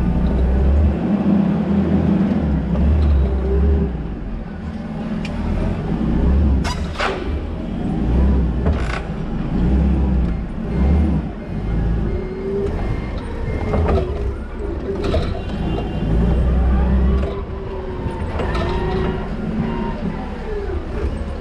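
Toyota counterbalance forklift running and manoeuvring, its motor and hydraulics whining up and down in pitch as it drives and turns, with several sharp clanks from the mast and load along the way.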